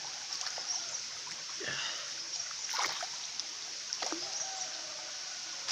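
Empty clam shells being thrown away, heard as three or four short sharp splashes or clatters about a second apart. Under them runs a steady hiss of flowing water.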